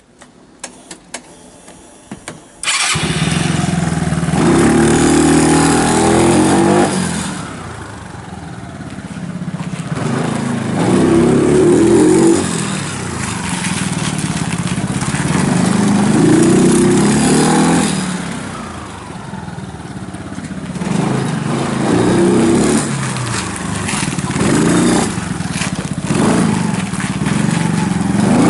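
Yamaha Cygnus X 125 scooter's single-cylinder four-stroke engine through an aftermarket Beams muffler: a few light clicks, then the engine starts about two and a half seconds in. It runs loudly as the scooter is ridden, the exhaust note rising and falling every few seconds with the throttle.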